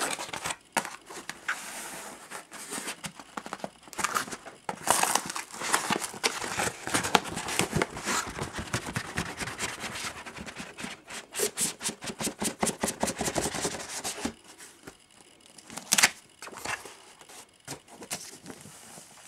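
Brown cardboard book mailer being torn open and handled: a long run of ripping, rustling and crinkling that dies down after about fourteen seconds, followed by a single sharp knock.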